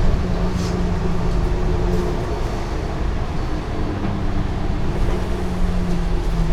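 Citybus 5539's engine running with a steady hum while the bus is under way, its pitch dropping a little near the end.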